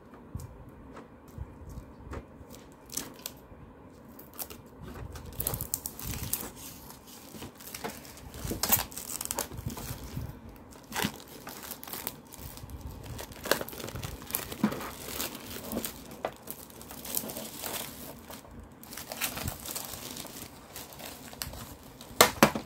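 Clear plastic shrink-wrap being peeled and pulled off a cardboard colour-pencil box, crinkling and crackling, quiet at first and busier from about five seconds in. Two sharp loud knocks near the end.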